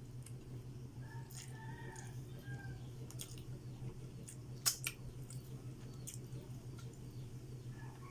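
Eating sounds: faint chewing and scattered sharp clicks, the loudest click a little past halfway, over a steady low hum.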